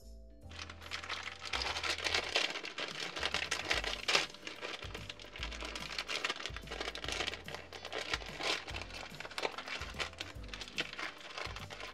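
Thin clear plastic zip-lock bags crinkling as hands handle and open them, an irregular rustle that starts about half a second in, with background music underneath.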